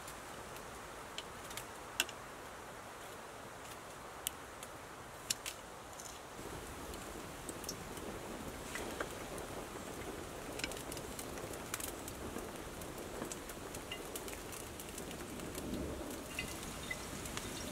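Quiet woodland ambience: a soft hiss with scattered sharp crackles and ticks, the hiss growing a little louder about six seconds in.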